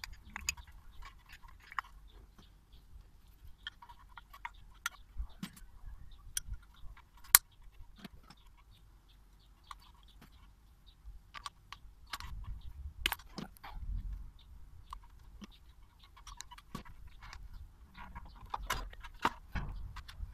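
Scattered small metallic clicks and knocks from a motorcycle's front brake caliper being handled and fitted back over the brake disc, with one sharp click about seven seconds in.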